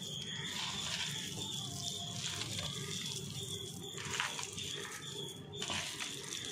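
A hand squeezing and kneading a moist mixture of shredded cooked chicken, gram flour and chopped onion in a steel bowl, making soft wet squishing sounds, with one sharper tap about four seconds in.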